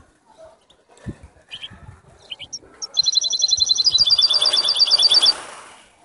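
Canary singing: a few short chirps, then about three seconds in a loud, fast trill of high notes repeated about ten times a second, lasting a little over two seconds. A soft rustling noise runs under the second half of the trill.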